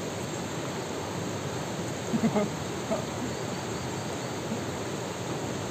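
Steady rush of a river flowing over rocks, with a short voice sound about two seconds in.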